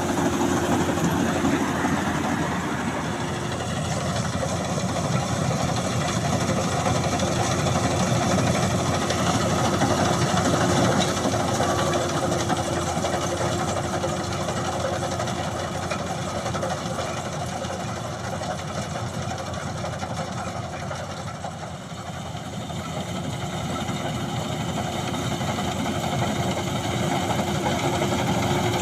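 Maxxi Bimo 102 combine harvester running steadily, engine and threshing machinery together with a constant hum. It fades a little about three-quarters of the way through, then grows louder again.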